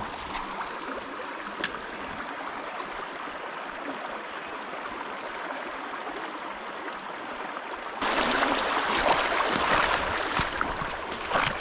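Creek water trickling steadily, with a faint click or two in the first two seconds. About eight seconds in the sound steps up abruptly to a louder, rougher rush with irregular knocks.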